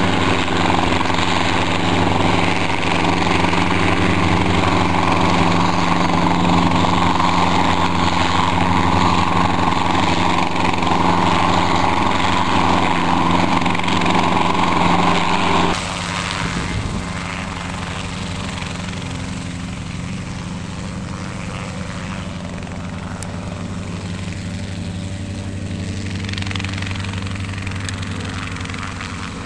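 Helicopter engine and rotor running close by, loud and steady. About halfway through it drops abruptly to a quieter, steady running sound.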